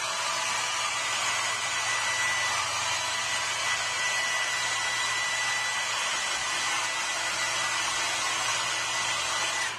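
Handheld hair dryer blowing steadily, a constant rush of air with a thin high whine, drying water out of a freshly rinsed resin 3D print; it is switched off at the very end.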